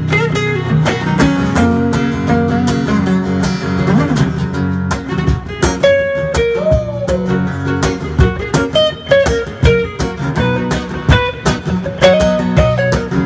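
Guitar solo in a live reggae song: picked melody lines, with a note bent upward about six seconds in, over strummed chords.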